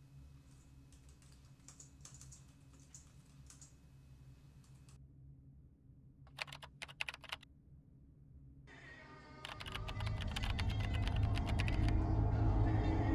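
Typing on a laptop keyboard: soft scattered keystrokes, then a quicker, louder run of keystrokes about six seconds in. From about nine seconds in, music swells up and becomes the loudest sound.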